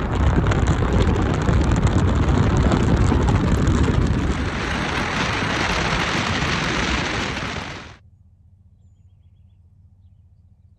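Wind rushing and buffeting over the microphone at an open window of a moving car, with road noise underneath. It cuts off suddenly near the end, leaving only a faint low hum.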